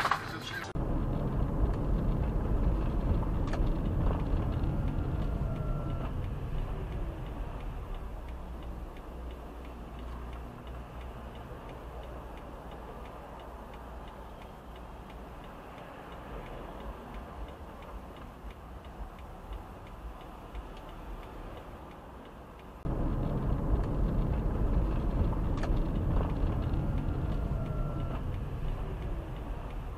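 Steady low rumble of road and engine noise inside a car cruising at highway speed, around 72 mph. It eases down slowly, then jumps back up suddenly near the end.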